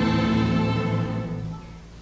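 Middle school string orchestra with double basses bowing a sustained chord in a minor-key piece; the chord dies away about a second and a half in, leaving a brief pause in the playing.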